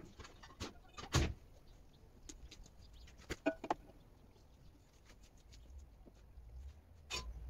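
Scattered knocks and clunks of handling work on a car's front end, the loudest about a second in, a short rattling cluster halfway through and another knock near the end.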